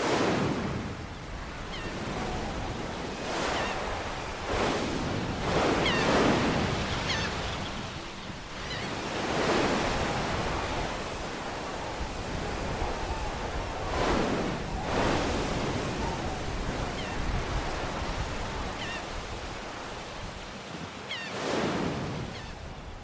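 Sea waves breaking and washing against rocks, a fresh surge rising every few seconds over a constant hiss of churning water.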